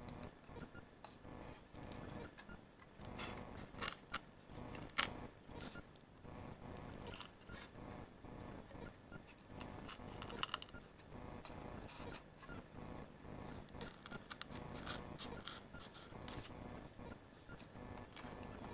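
Scissors snipping and scraping at a thin wooden crate board: irregular sharp snips and scrapes in small clusters, the sharpest about five seconds in.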